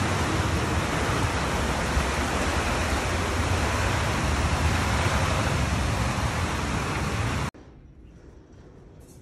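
Heavy rain falling steadily during a thunderstorm, a dense even hiss with a low rumble beneath it. About seven and a half seconds in, it cuts off abruptly to quiet room tone.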